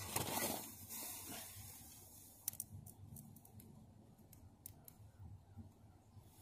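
Faint rustling and handling noise from electrical wires being worked at a car-type 12 V battery, loudest in the first second or so, followed by a few light, sharp clicks.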